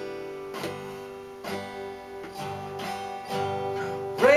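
Acoustic guitar playing an instrumental break between verses, strummed chords ringing between strokes. A man's singing voice comes in near the end, louder than the guitar.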